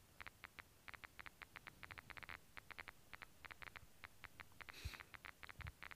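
Geiger counter clicking rapidly and irregularly, several clicks a second, as its probe is held against a radioactive old camera lens: each click is a detected pulse of ionizing radiation from the lens.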